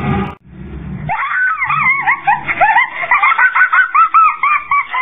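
A high-pitched voice shrieking in a fast run of rising-and-falling cries, starting about a second in, after a short noisy burst at the start.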